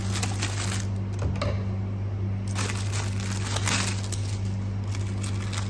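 Clear cellophane wrap crinkling and rustling as hands fold it around a block of floral foam, with scissors cutting through it about four seconds in, over a steady low hum.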